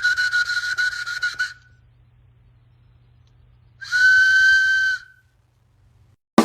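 A high whistle held at one steady pitch that stops about a second and a half in, then after a pause a second, shorter whistle at the same pitch.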